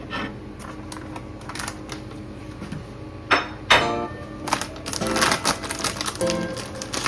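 Sharp clicks and clinks of hard parts being handled, with two loud strikes that ring briefly about three and a half seconds in. Light acoustic guitar music comes in near the end.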